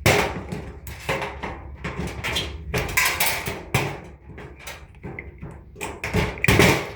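Irregular knocks, taps and clicks of hands and tools working on a device's casing and wiring during dismantling, with a few louder knocks about three seconds in and near the end.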